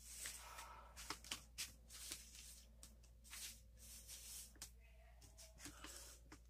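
Faint handling noises: soft rustling and scattered light clicks as a stack of drawing paper and a small plastic figurine on a clear base are moved about and picked up.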